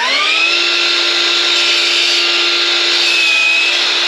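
DeWalt sliding compound miter saw running at full speed with a steady whine, its blade cutting through a 2x4.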